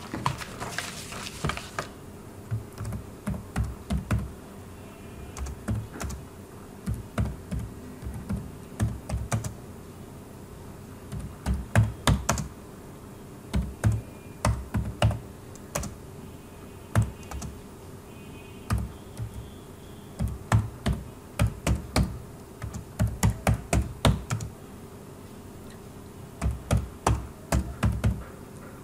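Typing on a computer keyboard: irregular runs of keystrokes with short pauses between words.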